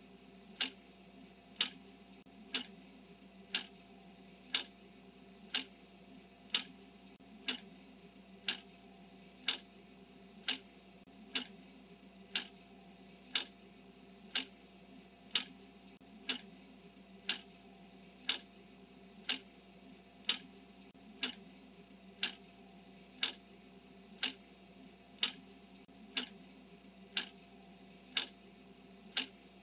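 Clock ticking steadily, one sharp tick each second, marking off the seconds of a countdown timer.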